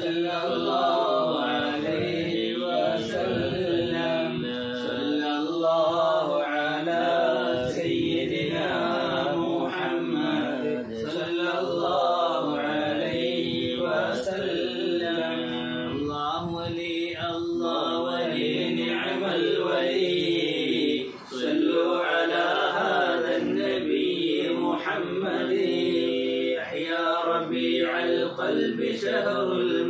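Unaccompanied male voices chanting an Arabic moulid recitation, a salawat on the Prophet, in long drawn-out melodic lines with held, wavering notes. The chant breaks briefly for a breath about two-thirds through.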